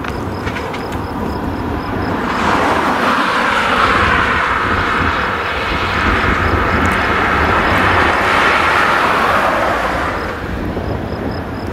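Fendt 939 tractor and Krone BiG Pack big square baler running steadily while baling hay. A louder rushing sound swells about two seconds in and fades away near the end, as of something passing by.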